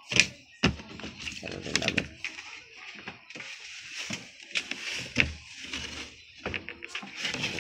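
Clothes being pulled by hand out of a twin-tub washing machine's plastic spin-dryer basket: cloth rustling, with repeated short knocks of the plastic lid and basket.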